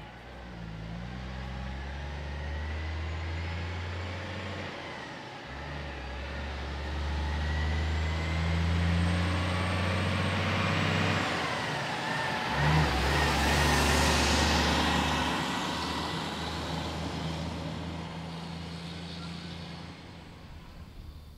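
Loaded log truck's heavy diesel engine pulling up the road, its deep note breaking twice as it changes gear. It grows louder to pass close about two-thirds of the way in, with tyre noise and a high whine, then fades away.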